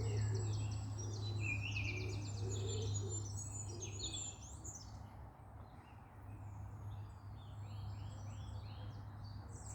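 Several small songbirds singing, a dense mix of chirps and trills that is busiest in the first few seconds, over a steady low hum.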